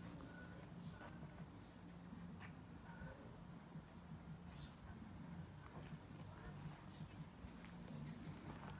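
Faint outdoor ambience: small birds chirping high and quickly in short repeated groups, over a low steady hum.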